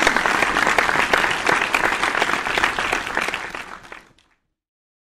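Auditorium audience applauding, a dense clatter of many hands clapping that dies away and cuts off about four seconds in.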